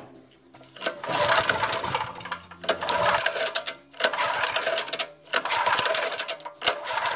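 Small generator engine, primed with starting fluid down the spark plug hole, being turned over in four rasping bursts of a second or two each in an attempt to start it.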